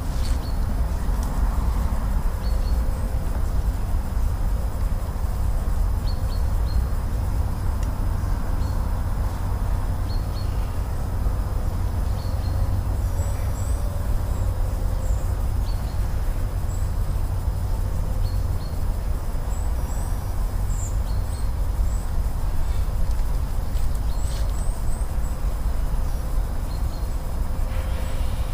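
Steady low outdoor rumble with small birds chirping faintly and repeatedly over it.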